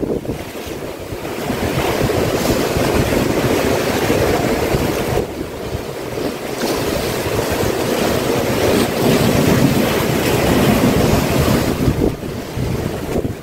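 Sea waves surging and washing ashore, with wind buffeting the microphone.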